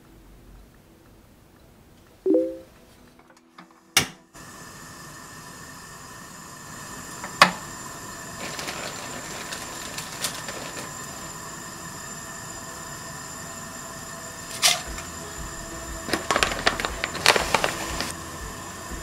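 Portable gas cassette stove: a sharp igniter click, then the burner flame hissing steadily. Before it there is a short ringing clink, and later a couple of sharp knocks and a run of light clatter near the end as the pot is handled.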